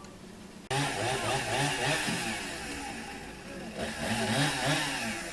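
Chainsaw running at high revs, cutting in abruptly under a second in, easing briefly past the middle and revving up again before fading near the end.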